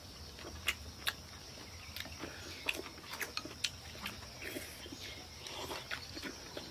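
Two people eating: quiet chewing and slurping from bowls, with scattered sharp clicks of chopsticks against porcelain bowls.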